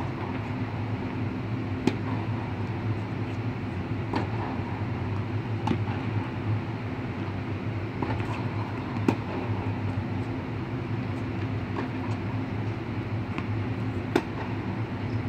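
Tennis balls struck by racquets in a groundstroke rally, a sharp pop every couple of seconds, over the steady hum of the blowers that keep an air-supported tennis dome inflated.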